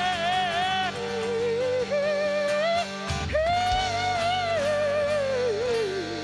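Live acoustic band playing, with a lead voice singing long wordless notes with vibrato over acoustic accompaniment; a long held note slides downward near the end.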